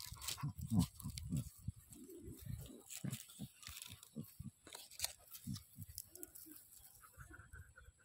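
Dog chewing and nibbling at its own paw close to the microphone: an irregular run of short, low mouth and nose sounds mixed with wet clicks of teeth and tongue.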